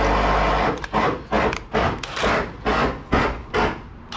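A power tool runs briefly, then about eight rhythmic rasping strokes on timber follow, roughly three a second, as a hole is worked through a wooden stud.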